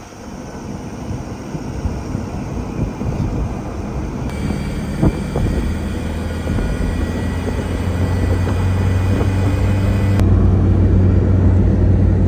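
Car driving along a highway, its engine and tyre noise heard from inside the cabin as a steady low hum that grows steadily louder.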